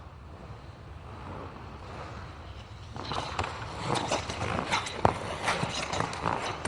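Ice skate blades gliding and scraping on ice: a low rumbling glide at first, then from about three seconds in a quick run of sharp scrapes and cuts, with one sharp crack about five seconds in.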